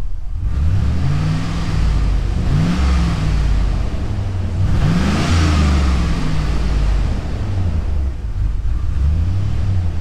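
2000 Chevy Tahoe's 5.3-litre LS V8 running and revving up and dropping back several times, the biggest rise about five seconds in. The engine is misfiring on cylinders 7 and 8 and acting up.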